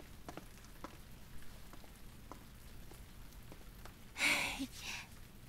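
A person's short breathy exhale, like a sigh, about four seconds in, with a smaller breath just after, over faint background and a few light ticks.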